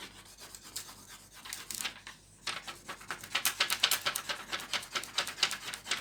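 Quick back-and-forth scratchy hand strokes rubbing across the wooden tray's surface, as in hand sanding or rubbing. They are light at first and grow louder and faster about two and a half seconds in, then stop at the end.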